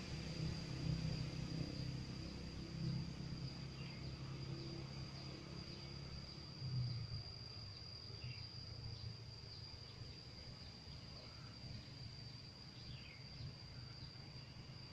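Insects trilling, one high, unbroken tone, with a few short bird chirps. A low rumble of passing road traffic fades out about halfway through.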